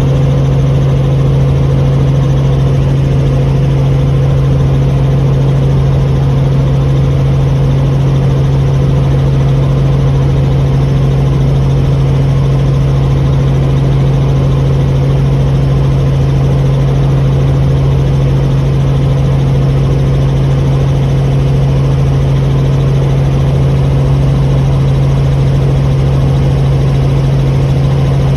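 Helicopter in flight, heard from on board: a loud, steady engine and rotor drone with a strong low hum that does not change.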